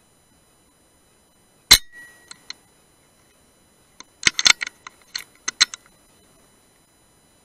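Metallic clicks from a .177 PCP air rifle: one sharp, loud crack with a short ring after it, then about two seconds later a quick run of small clicks and clinks.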